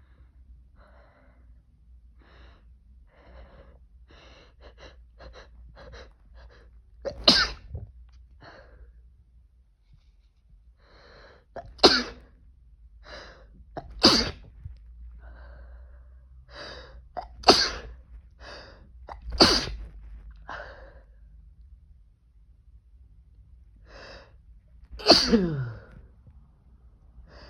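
A man sneezing hard about six times, the first about seven seconds in, each preceded by short sniffs and hitching in-breaths as the sneeze builds. The sneezes are induced by tickling the nose with toilet paper.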